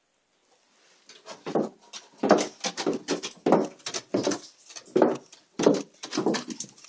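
Footsteps going down wooden stairs, about ten evenly paced steps a little over one every half second, starting about a second in.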